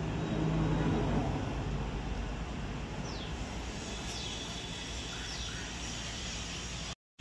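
Steady outdoor background rumble with a few short, falling bird chirps in the second half. The sound cuts out briefly near the end.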